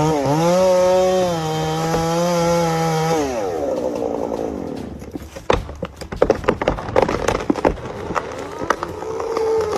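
Chainsaw running at full throttle, then its revs fall away as the throttle is released. From about five seconds in, a run of sharp cracks and crashes of breaking wood.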